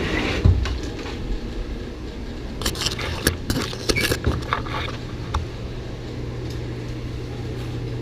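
Laser-tag guns being picked up and handled off a table: a cluster of clicks and plastic clatter a few seconds in, over a steady low hum.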